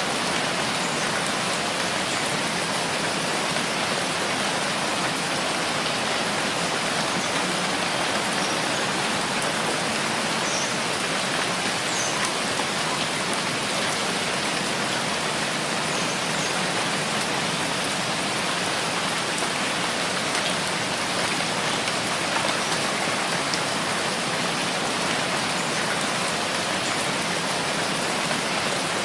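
Steady rainfall, an even hiss of rain on surfaces that does not let up.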